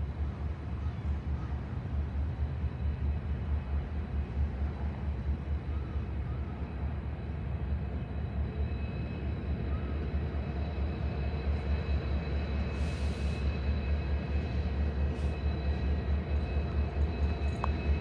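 Diesel locomotives of an approaching freight train, led by an EMD SD75I, running with a steady low rumble and a thin high whine that grows louder as they draw near.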